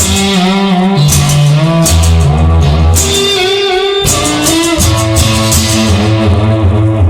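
Instrumental blues music: a guitar plays bending notes over a bass line and a steady drum beat.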